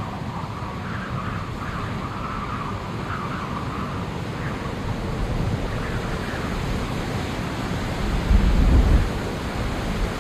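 Steady outdoor rushing noise, heaviest in the low end, with a louder low rumble about eight seconds in. A faint wavering tone sits over it in the first few seconds.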